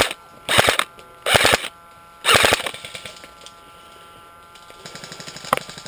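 Airsoft gun firing short full-auto bursts: three quick rattling bursts in the first few seconds, then a fainter, faster rattle of fire near the end.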